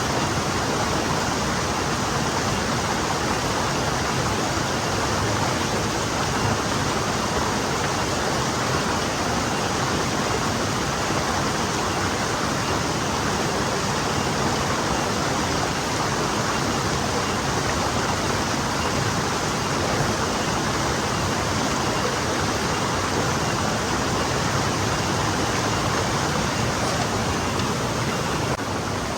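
Forest stream flowing, a steady even rush of water without distinct splashes.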